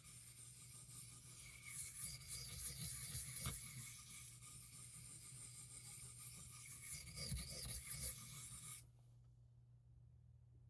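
A D2 steel pocketknife blade stroked across an Arkansas sharpening stone makes a faint, continuous scraping hiss as the burr is worked. The scraping stops abruptly near the end.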